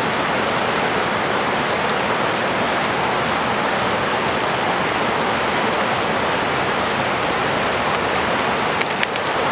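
Waterfalls: a loud, steady rush of falling water, even and unbroken.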